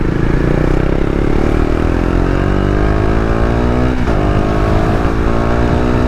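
KTM Duke's single-cylinder engine pulling under acceleration, its pitch rising steadily, dipping with a gear change about four seconds in, then climbing again. Its silencer has dropped down and is held on with tape.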